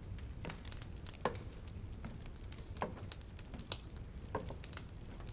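Faint scattered clicks and soft taps, a soft tap about every one and a half seconds, over a low steady background hum.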